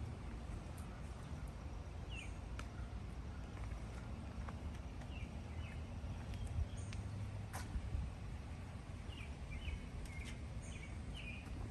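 Outdoor ambience: a steady low rumble with short faint bird chirps scattered throughout and a few light clicks.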